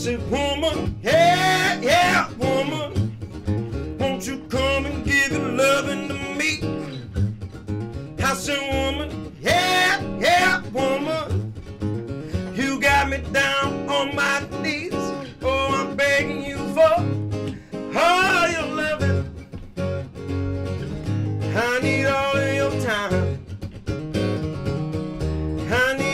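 Acoustic guitar strumming a 12-bar blues while a man sings.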